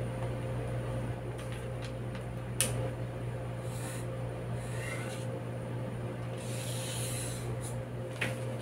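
A marker drawn along a plastic French curve on pattern paper: faint scratching strokes, with a light click from the plastic curve about two and a half seconds in. A steady low hum runs underneath.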